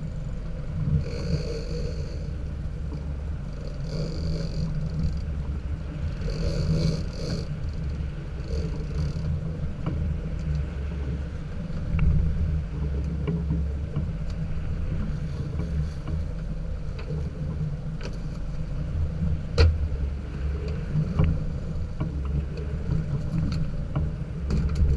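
Boat motor running steadily under wind and water noise, with a few sharp knocks against the hull or deck.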